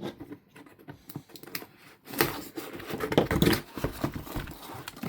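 Product packaging being handled and opened by hand. A few light clicks and taps come first, then from about two seconds in a busier run of rustling, crinkling and scraping.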